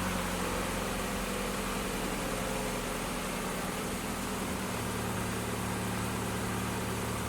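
Mazda MX-5's four-cylinder engine idling steadily just after a start, its note settling a little about halfway through. Its freshly replaced drive belts run without any squeal.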